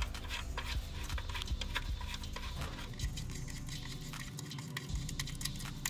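Ratchet and socket working an 8 mm bolt on an engine's intake: light, irregular metallic clicks and clinks throughout.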